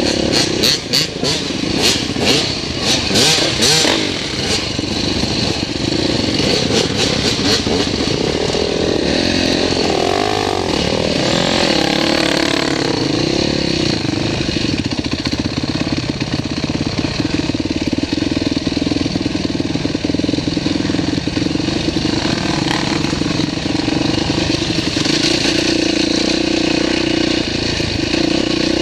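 Dirt bike engine running while riding a rough trail: sharp rattling knocks over the first few seconds, revving up and down around ten to thirteen seconds in, then a steady drone.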